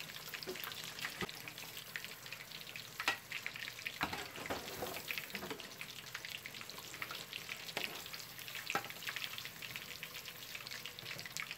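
Fish fillets deep-frying in a pot of hot oil, a steady sizzle full of fine crackles and pops, with a few sharper clicks and taps as the fillets are moved about with a metal slotted spoon.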